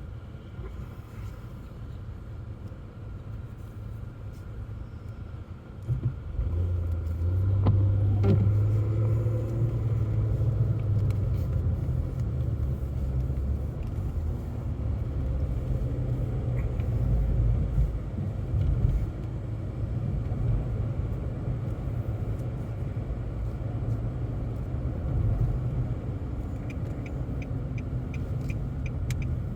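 A car driving, heard from inside the cabin: a steady low road and engine rumble that gets louder about six seconds in. Near the end there is a quick run of light, even ticks.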